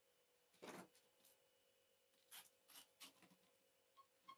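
Faint rustling and small clicks of hands handling a brushless motor's wires and connectors while plugging them into the speed controller, with one rustle about a second in and a few more short ones later.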